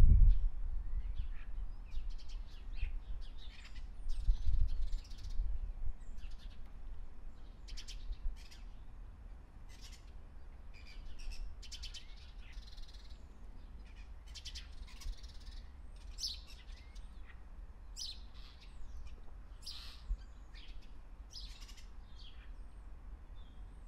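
Birds chirping in short, scattered calls, over a low rumble that is loudest in the first few seconds and then stays faint and steady.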